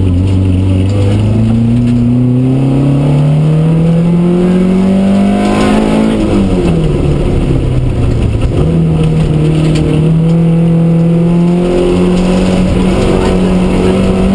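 Vauxhall Astra Mk2's 1.4-litre four-cylinder petrol engine under hard acceleration, heard from inside the cabin. The revs climb steadily for about six seconds, drop sharply as the driver comes off the throttle, then pick up again about nine seconds in and climb slowly.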